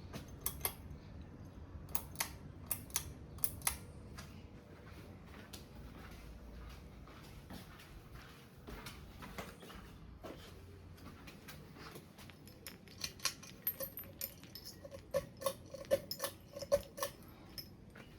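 Ceiling fan running with a steady low hum, with light, sharp metallic clicks and jingles in irregular bursts, the thickest run coming near the end.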